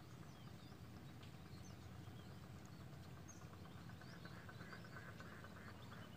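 Faint outdoor ambience: scattered small bird chirps over a low steady rumble, with a brief rapid trill about four seconds in.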